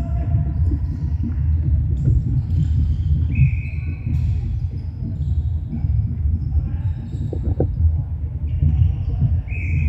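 Players' court shoes thudding and squeaking on a wooden sports-hall floor during play, with two sharp shoe squeaks, one about three and a half seconds in and one near the end, over a steady low rumble of the echoing hall.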